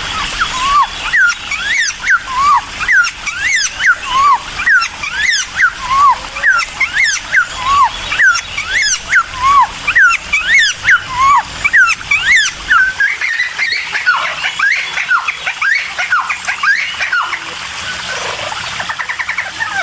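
Cucak timor singing hard: a run of loud, clear whistled notes, each one sweeping up and down, repeated about once a second. About two-thirds of the way through the song breaks into a rougher, faster chattering.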